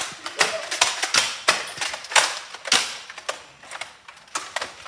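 Toy foam-dart blasters being primed and fired: an irregular string of sharp plastic clacks and pops, about fifteen in all.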